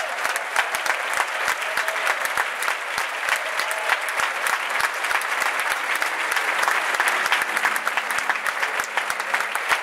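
A large church congregation and choir applauding: many hands clapping in a dense, irregular patter at a steady level.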